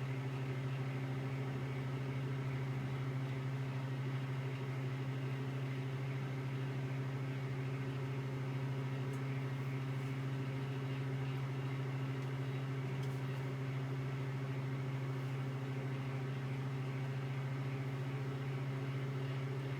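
Magic Chef MCD1311ST 1100-watt microwave oven running, heating a cup of water: a steady low hum with fan noise.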